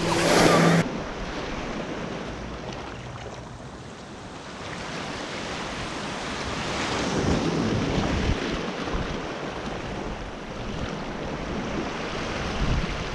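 Small waves washing up on the shore, with wind buffeting the microphone. A louder rush of surf in the first second, then the wash swells and eases over several seconds.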